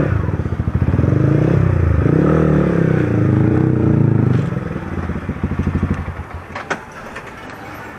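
Yamaha R15 V3's single-cylinder engine running at low speed while the bike is ridden slowly into a parking spot, its pitch rising and falling with the throttle. It drops away about four and a half seconds in and fades out near seven seconds, followed by a couple of sharp clicks.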